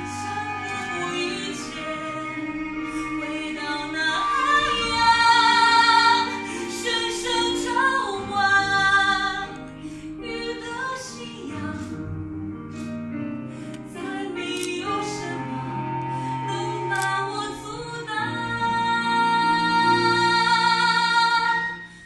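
A woman singing a slow solo song over instrumental accompaniment, holding long notes. Near the end she sustains a loud high note that cuts off abruptly.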